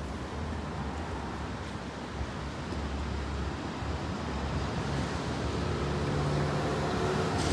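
Street background of low road-traffic rumble with some wind noise, growing slightly louder, and a faint steady engine hum coming in over the last couple of seconds.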